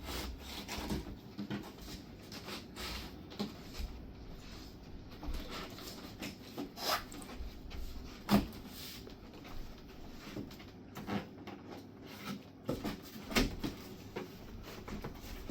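Cardboard panels being handled and pressed together: scattered light knocks, scrapes and rustles as a slotted cardboard base is worked down onto the wardrobe's dividers, with the sharpest knock about eight seconds in.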